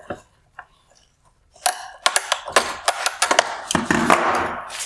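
A run of sharp plastic clicks and snaps, with a scraping stretch near the end, as needle-nose pliers squeeze the projector's plastic bottom mount inside a bi-xenon headlight housing and the projector is worked forward.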